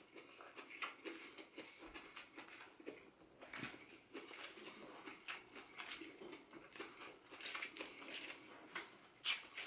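Faint crisp rustling and crinkling of fresh lettuce leaves being pulled apart and handled, with soft chewing, and a short sharper click near the end.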